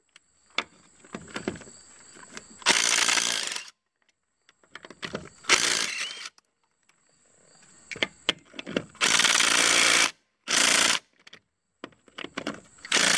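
Cordless DeWalt drill spinning a socket on a UTV wheel's lug nuts, in five short bursts with metal clicks and taps between them as the socket is moved from nut to nut.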